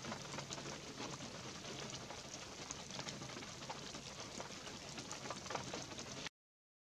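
Light rain falling through pine trees onto a needle-covered forest floor: a steady hiss dotted with many separate drops. It cuts off suddenly near the end.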